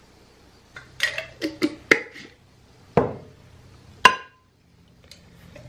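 Metal measuring spoon scooping salt from a glass jar: a run of sharp clinks and knocks, the last one, about four seconds in, ringing briefly.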